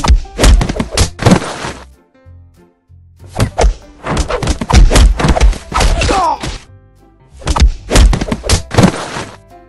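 Fight sound effects: rapid flurries of punch and kick impacts, coming in three bursts, over background music.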